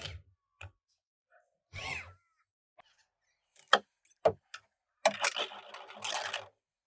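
Metal parts of a BTR four-speed automatic transmission being handled during teardown: a few sharp clinks, then a rattling scrape of parts moved about near the end.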